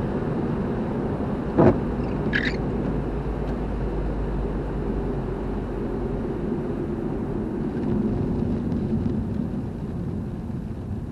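Steady low rumble of a car driving, with a sharp knock about one and a half seconds in and a brief higher squeak just after.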